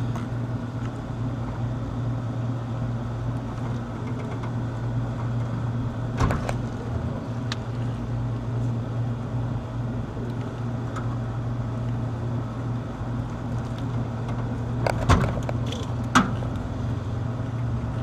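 A steady low mechanical hum, with a few sharp clicks and knocks from hand tools as wiring is worked on at an air conditioner; the two loudest knocks come close together near the end.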